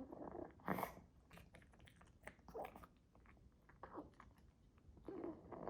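A Pekingese chewing a treat: faint, irregular crunches and clicks of its teeth.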